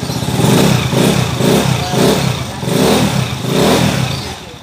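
Honda TMX 155 motorcycle's single-cylinder four-stroke engine, freshly overhauled, running just after starting and blipped up in about four short revs, then falling back toward idle near the end.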